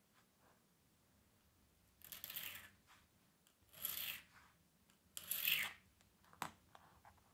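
A needle file scraped across a small clear rod in three separate strokes, each well under a second, followed by a single sharp click.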